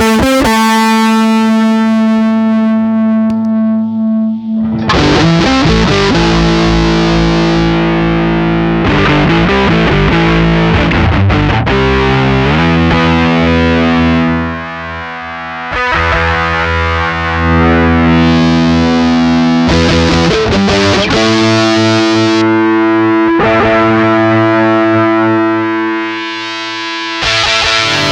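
Distorted electric guitar played direct into an audio interface through a one-knob low-pass/high-pass filter pedal standing in for a speaker cabinet, ringing out sustained notes and chords. It dips briefly in level twice.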